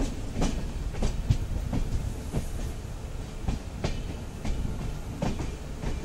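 Passenger train wheels clattering over rail joints while the train is moving. Sharp clacks come at irregular spacing, about one or two a second, over a steady low rumble.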